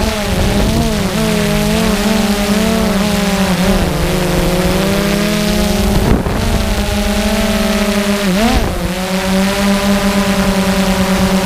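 Quadcopter drone's motors and propellers buzzing in flight, a steady hum whose pitch wavers and dips briefly about a second in, near four seconds and past eight seconds as the motors change speed, over a rushing hiss.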